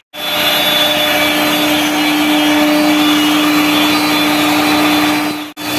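CNC router spindle running at 18,000 RPM with a steady hum, cutting parts out of a white board with a 4 mm bit, over the rush of the dust extractor drawing air through the hose. The sound starts and stops abruptly at cuts just after the start and about five and a half seconds in.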